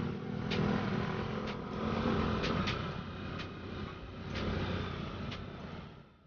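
Motorcycle engine running steadily while riding along a rough dirt road, with sharp clicks or knocks about once a second.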